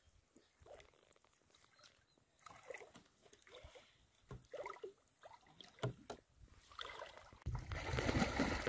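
Water sloshing and splashing as people wade and move through a shallow, muddy pond, in short scattered bursts. Near the end comes a louder, steady rush of churning water.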